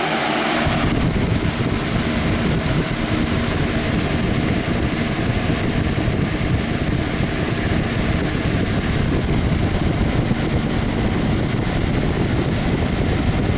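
Lasko 20-inch box fan, model 3723, running on high. Its airflow buffets the microphone with a heavy low rumble that sets in about a second in.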